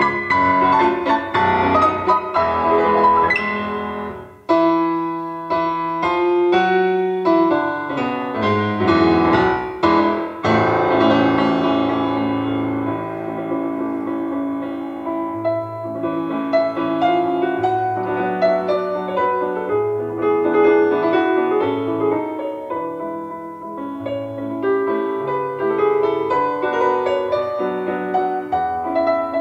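Solo piano recording played back through a Revox Model 40 valve amplifier and picked up by a recorder's built-in microphones. The playing drops off briefly about four seconds in, then resumes.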